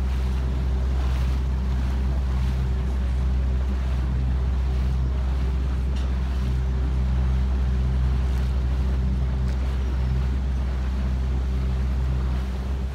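Small boat's engine running steadily under way, a low even hum, with water washing along the hull and wind on the microphone.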